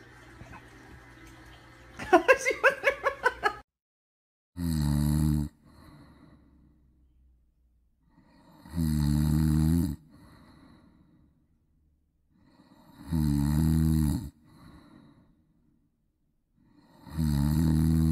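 About two seconds in, a short burst of rapid high-pitched squeals. After it, a sleeping dog snores four times, evenly spaced about four seconds apart; each long snore is followed by a softer breath out.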